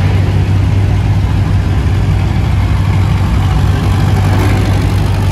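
A vehicle engine idling steadily, a loud, deep, even drone.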